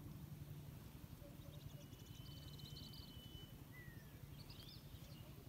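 Faint bird calls over quiet open-air ambience: a run of quick high chirps with a thin held whistle about two seconds in, then a short falling note and a few more chirps near the end, over a faint steady low hum.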